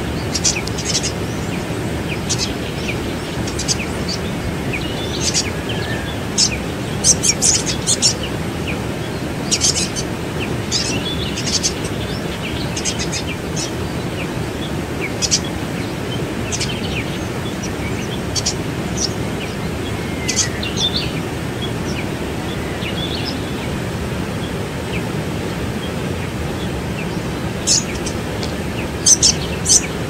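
Steady rush of a waterfall, with small birds giving short, high chirps on and off, busiest about a quarter of the way through and again near the end.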